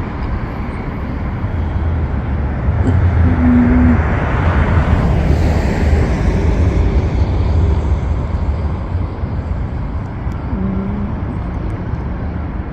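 Road traffic: a vehicle drives past, its noise swelling about a third of the way in and fading away, over a steady low rumble.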